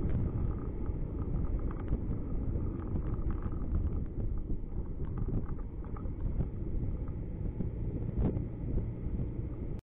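Car driving slowly through city traffic, heard from inside the cabin: a steady low rumble of engine and tyres with a few light knocks. The sound cuts off suddenly near the end.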